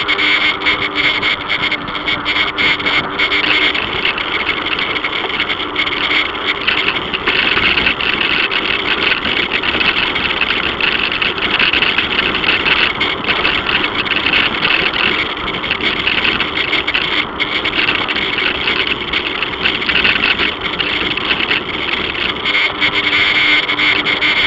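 Steady riding noise of a bicycle rolling over a concrete path, picked up by an action camera mounted on the bike: tyre and wind noise, a dense even rush with no pauses.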